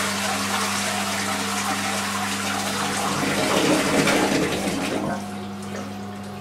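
Toilet flushing: water from a cistern fitted with a water-displacing Hippo bag rushes out into the bowl, then dies down about five seconds in.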